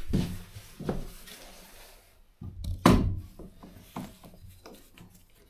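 A few dull knocks and thunks, the loudest about three seconds in, from tools and the metal bracket against the van box ceiling as a sealant-bonded mounting bracket is worked loose, in a small boxy space.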